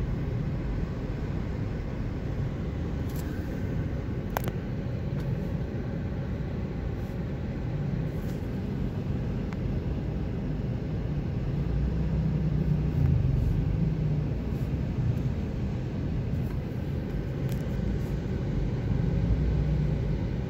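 Steady low rumble of a car's engine and road noise heard from inside the cabin while creeping in slow stop-and-go traffic, swelling slightly twice in the second half.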